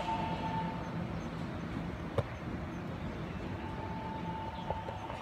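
Low, steady rumble of a Taiwan Railways EMU700-series electric multiple unit running into the station, with a single sharp click about two seconds in. A steady high tone fades out at the start and returns about four seconds in.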